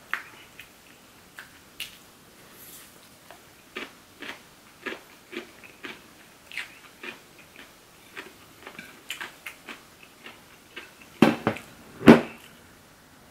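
Close-up chewing of green onion seafood pancake (pajeon), with short crisp crunches about every half second. Near the end, two loud knocks as a plate is handled on the table.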